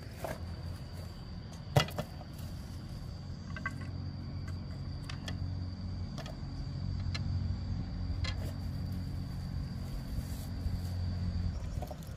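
A motor running steadily with a low, even hum that stops about 11.5 seconds in, with a thin steady high tone over it and a few sharp clicks, the loudest near two seconds in.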